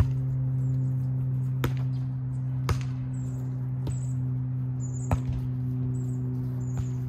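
A volleyball being struck by players' hands and forearms during a rally: six sharp slaps about one to one and a half seconds apart. Under them runs a steady low hum, and short high chirps repeat in the second half.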